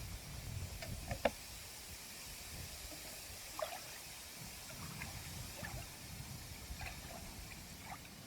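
Faint water sounds of small splashes and drips, with scattered sharp ticks (the sharpest about a second in) over a low rumble.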